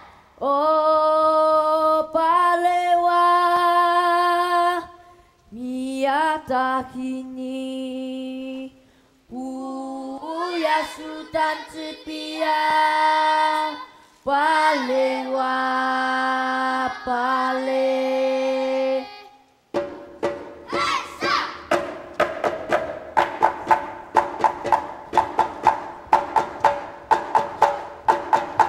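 A child's solo voice sings four long, held phrases with short breaks between them. About two-thirds of the way in, a group of voices starts chanting together over a quick, steady beat.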